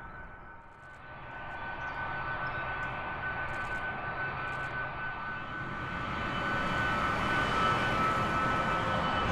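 Boeing C-17A Globemaster III's four turbofan engines running as it taxis: a steady high whine over a low rumble, growing louder from about a second in until near the end.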